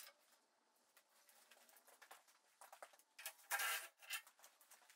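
Cordless drill running briefly about three seconds in, with a shorter spin just after. Faint scraping and clicks of handling come before it.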